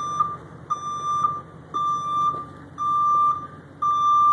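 Vehicle backup alarm beeping steadily, about one half-second beep a second, five beeps in all. It is wired to the truck's brake lights, so it sounds while the brake pedal is held down.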